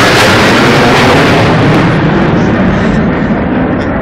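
Heavy military jet aircraft flying low overhead in a parade formation: a loud, steady jet roar whose high hiss fades from about halfway through as the aircraft move away.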